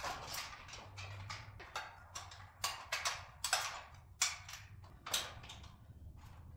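Steel scaffolding parts and their locking pins clicking and knocking as a side support is fitted to the end frame and pinned in place: a string of irregular sharp metal clicks and light knocks.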